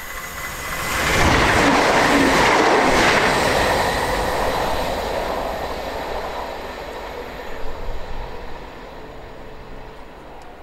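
Class 170 Turbostar diesel multiple unit passing at speed: train noise swells about a second in, then slowly fades as the unit runs away.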